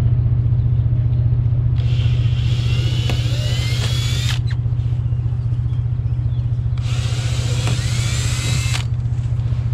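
Cordless drill boring holes in a white PVC trim board, in two runs of about two seconds each, the first starting about two seconds in and the second about seven seconds in, each rising in pitch. Under it a steady low drone that does not change.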